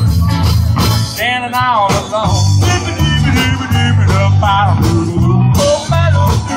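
Live country-rock band playing over a PA: the last sung word of a line, then an instrumental stretch of guitars with bending lead lines over bass and drums.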